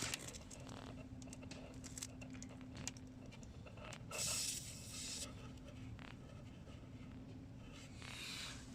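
Short hisses of air at a tyre valve as a screw-on tyre pressure sensor is threaded onto it: one about four seconds in and a fainter one near the end, with a few faint handling clicks.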